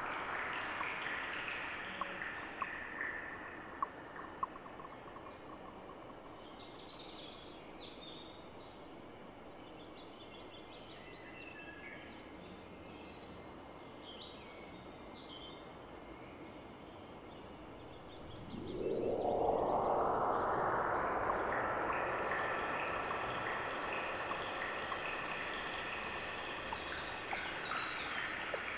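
Synthesized drone from a Pure Data Automatonism patch: a wash of noise that swells suddenly about two-thirds of the way through, sweeping up in pitch, then slowly fades.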